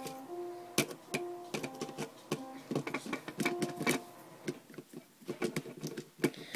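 A run of small, irregular clicks and ticks as a precision screwdriver works tiny screws out of a cordless phone handset's circuit board. Piano notes play in the background for the first four seconds or so.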